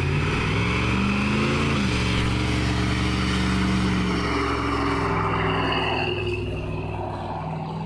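A Chevy 454 SS pickup's 454 cubic-inch big-block V8 revving hard during a burnout, with the rear tyres spinning and squealing on the pavement. The revs climb, drop back sharply about two seconds in, then hold high and steady.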